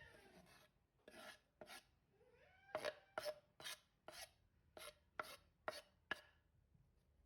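Faint series of about ten short scraping strokes, roughly two a second.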